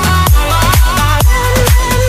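Background music: an electronic dance track with a steady kick drum about two beats a second under a synth melody.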